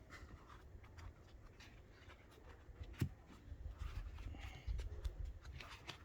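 Screwdrivers being handled in and out of a foam-lined case: light scratchy rubbing and scattered small clicks, with one sharper click about three seconds in.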